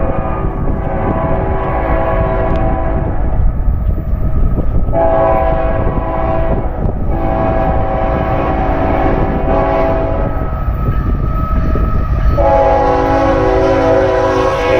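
Freight locomotive's air horn blowing several long blasts, several tones at once, with short breaks between them, over the steady low rumble of the approaching train.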